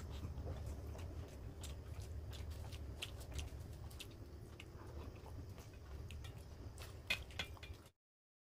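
Eating sounds of a person eating rice by hand: chewing and mouth noises with small clicks and soft squelches as rice is mixed by hand on a steel plate, over a low steady hum. A sharper click comes a little after seven seconds, and the sound cuts off abruptly near the end.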